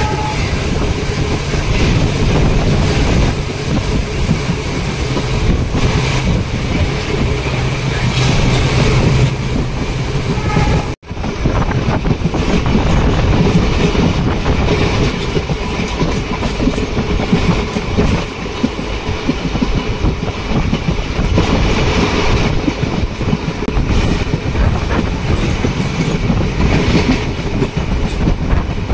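Passenger train running at speed, heard from an open coach doorway: a steady loud rumble of the wheels on the rails with rushing air.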